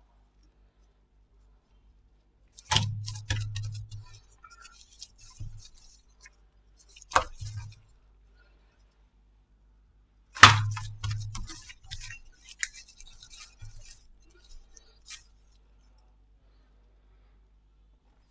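Slime being pressed and worked by hand, with three sharp crackling snaps, each trailing off into smaller crackles and pops over a second or so.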